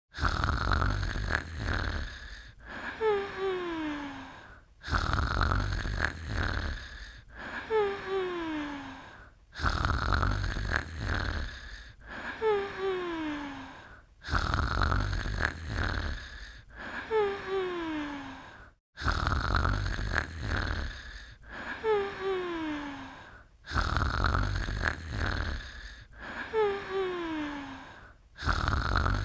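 Snoring in a slow, even rhythm, about six breaths. Each breath is a rough, rasping snore followed by a whistle that falls in pitch.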